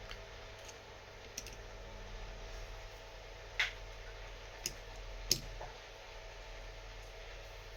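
Small metal internal parts of a Lagard 2200 key lock clicking as they are handled and fitted back in, with a few sharp clicks around the middle, over a faint steady hum.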